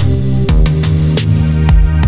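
Electronic background music with a steady drum beat over sustained bass and synth notes.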